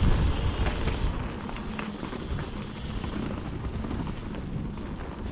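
Wind buffeting the microphone over the rumble of mountain bike tyres rolling along a rough trail, with scattered small clicks and rattles.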